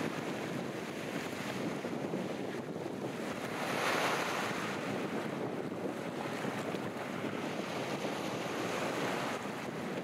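Sea waves breaking and washing on the beach in steady surf, swelling loudest about four seconds in, with wind buffeting the microphone.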